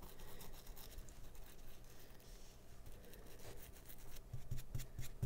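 Small brush scrubbing flux residue off a circuit board's pins and underside: faint, quick scratchy strokes that grow busier in the second half.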